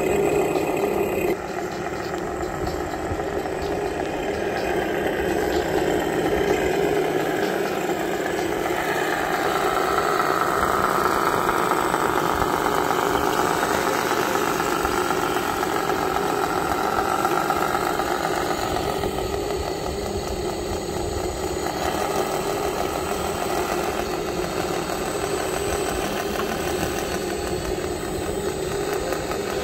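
Engine-like running sound of RC scale construction models, a 6x6 truck and a hydraulic wheel loader, as the loader works onto the trailer: a steady drone, with a higher whine that rises and falls through the middle.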